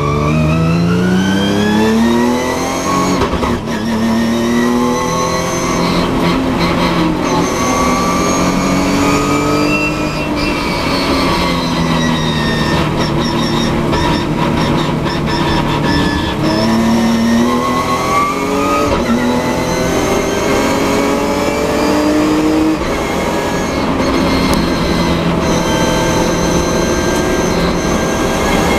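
Nissan 370Z race car's V6 engine heard from inside the cockpit, accelerating hard with the pitch rising and dropping back at each upshift. It eases off and picks up again through the corners.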